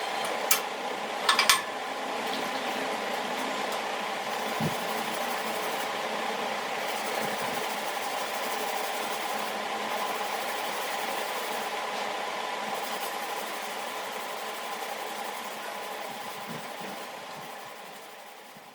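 A small machine motor running steadily with a high whine, with a few sharp clicks in the first couple of seconds; the sound fades out near the end.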